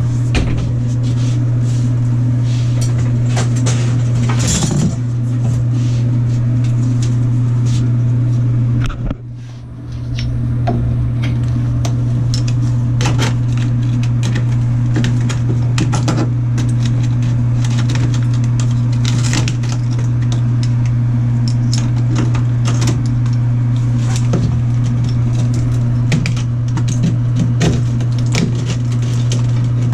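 A steady low hum runs throughout, with frequent clicks and knocks over it, and drops away briefly about nine seconds in before coming back.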